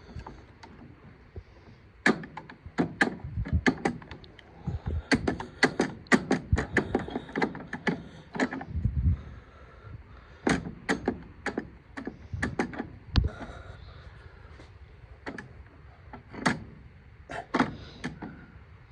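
Hand tools and metal parts clicking and knocking irregularly on a baler knotter as a fastener is started and worked tight.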